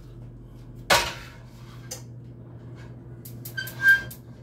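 A pan set back down onto a stove burner: one sharp metal knock with a short ring about a second in, then a few light clicks and a brief high squeak near the end.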